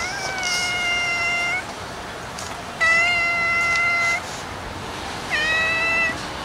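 Tabby-and-white cat meowing: three long meows held at a steady pitch, about a second apart, the last one shorter.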